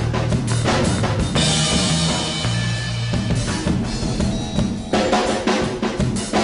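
Background music with a driving drum-kit beat and a sustained bass line.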